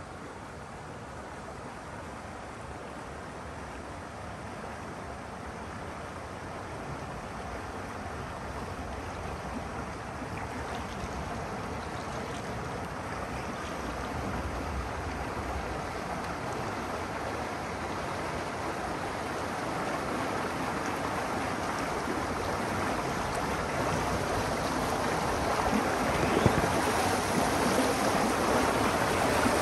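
Rushing river water at a lock, a steady wash that grows steadily louder, with one sharp knock near the end.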